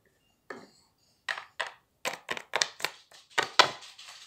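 A cat scratching itself, recovering from surgery: a run of sharp knocking scratches, about four a second, starting about a second in and stopping near the end.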